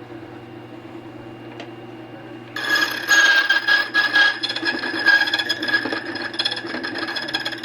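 Key duplicating machine humming, then about two and a half seconds in its cutting wheel bites into a Schlage key blank: a loud rasping metal cut with a steady high ring that lasts about five seconds.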